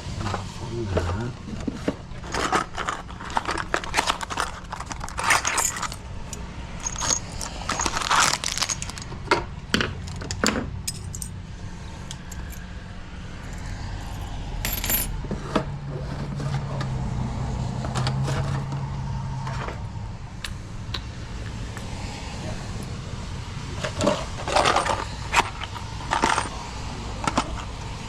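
Small metal lock parts, keys and hand tools clinking and jingling as they are handled during a deadbolt installation, with irregular clinks in clusters. A low steady hum runs for a few seconds in the middle.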